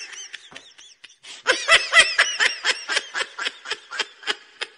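Human laughter: a fast run of high, repeated "ha" bursts that starts about a second and a half in and tails off near the end, after a quieter trailing laugh at the start.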